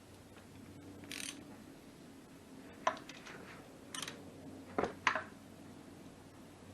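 A handful of short metal clicks and knocks as tools are handled around the motorcycle's sump plug, the loudest pair close together about five seconds in.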